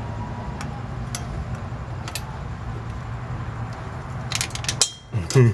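Light metallic clicks and taps of a telescoping magnetic pickup tool being worked in along a slant six engine's intake manifold, with a quick run of clicks about four and a half seconds in, over a steady low hum.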